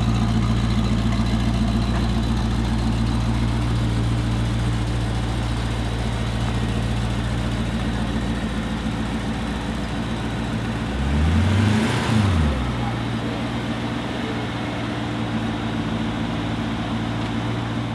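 Mansory Venatus Lamborghini Urus's twin-turbo V8 idling steadily. About eleven seconds in, one quick throttle blip rises in pitch and drops back to idle within about a second and a half.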